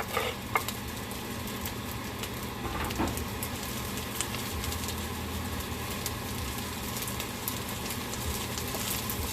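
Fried rice with meat and scallion sizzling in a hot pan, a steady frying hiss with occasional light clicks, over a low steady hum.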